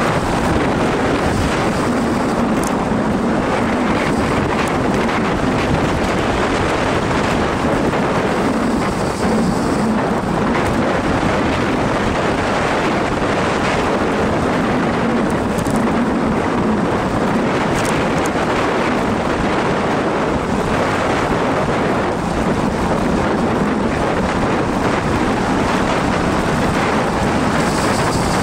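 Loud, steady wind rushing over the microphone of a camera on a bicycle descending a mountain road at speed, with a low hum that swells and fades several times.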